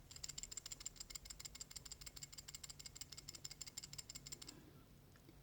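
A worn idler pulley from a 1994 Mazda RX-7 (FD), shaken by hand, its bad bearings giving a faint, rapid chatter of tiny clicks that stops about four and a half seconds in. The chatter is the sign of failed bearings inside the pulley.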